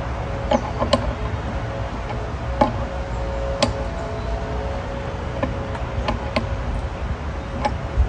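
Scattered light metallic clicks and taps of a hand tool working a nozzle tip on the spray bar of a pressure-washer surface cleaner as the tip is threaded back on, over a steady low rumble.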